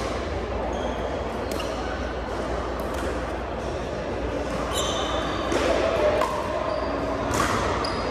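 Sharp, irregular pops of pickleball paddles and the hard plastic ball bouncing, with short squeaks of court shoes on a hardwood gym floor, over a steady murmur of voices echoing in a large hall.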